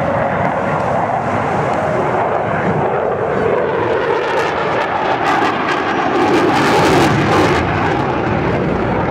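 Jet noise from a Eurofighter Typhoon's twin turbofan engines as it flies past. The noise swells and turns crackling from about four seconds in, loudest around seven seconds.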